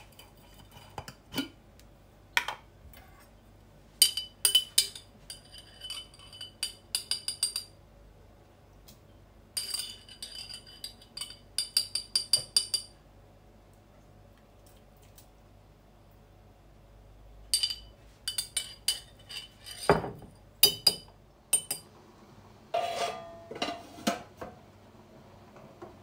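A metal spoon clinks and taps against a glass jar in quick runs as seasonings are spooned out into a cooking pot. There is a louder knock about 20 seconds in, and near the end a lower metallic clank as the pot lid is set on.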